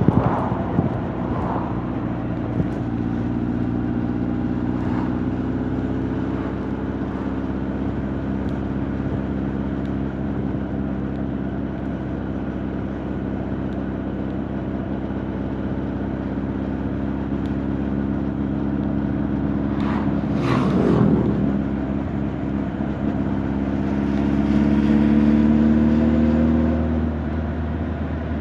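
Honda CB1300 Super Bol d'Or's inline-four engine and exhaust under way: a steady cruising note with a brief louder swell about two-thirds of the way through. Near the end the revs rise and the note grows louder under acceleration, then eases off.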